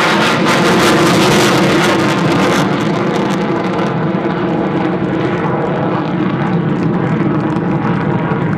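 Panavia Tornado GR4's twin RB199 jet engines passing overhead: a loud, steady jet rumble that crackles for the first three seconds or so, then loses its crackle and hiss after about four seconds as the jet flies away.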